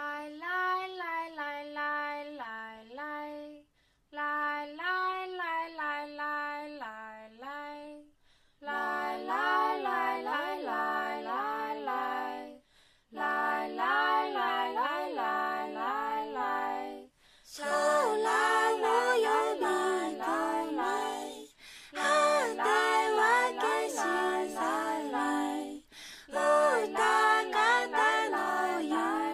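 Female vocal music, sung a cappella in short phrases with brief breaks. It starts as a single melodic line and grows fuller, with more parts layered in, after the first few phrases.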